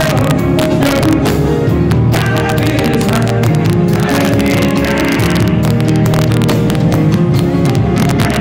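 Loud live reggae music through a concert sound system, heavy in the bass, picked up on a phone's microphone.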